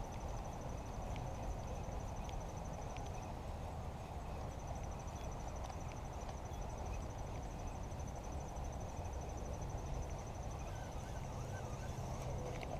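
Outdoor insect trilling steadily at a high pitch in a rapid, even pulse, breaking off about three seconds in and starting again a second later, over a low steady rumble.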